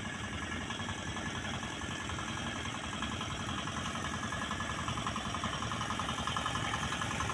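Small wooden fishing boat's engine running steadily across the water, its rapid even chugging growing a little louder from about halfway in.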